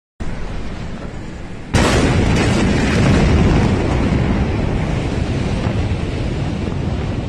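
Blast from a huge ammonium nitrate explosion reaching a phone's microphone: a sudden loud boom about two seconds in, followed by several seconds of loud, continuous rumbling noise that slowly eases.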